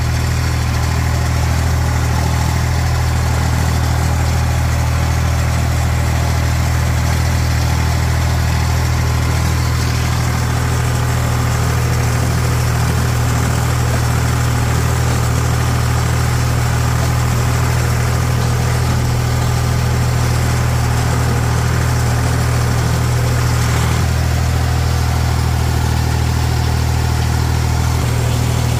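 Tractor engine running steadily under PTO load while pulling a Krone rotary tedder through cut hay, heard from the operator's seat.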